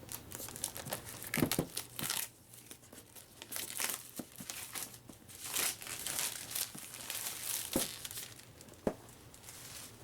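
Plastic shrink wrap being torn and crumpled off a new board-game box: an irregular run of crinkling and crackling with a few sharp snaps, easing off near the end.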